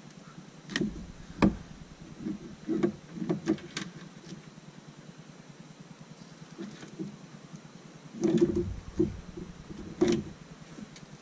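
Hand tools and wiring being handled: scattered clicks and knocks of pliers, wires and plastic connectors, some with a dull thump. The loudest come about a second and a half in, around eight seconds in, and again near ten seconds, over a steady low hum.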